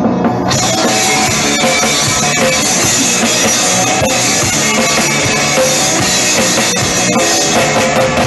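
Live rock band playing loudly, with a drum kit beating steadily through dense, full music.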